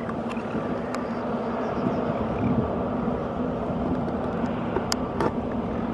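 Steady mechanical drone with a constant low hum, mixed with wind on the microphone. Two sharp clicks about five seconds in.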